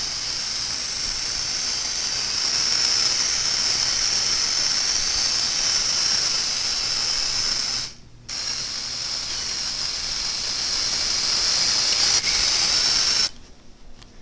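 A small robot's four gearhead motors whirring with a steady high whine as it drives. The whine cuts out for a moment about eight seconds in, starts again, and stops abruptly near the end.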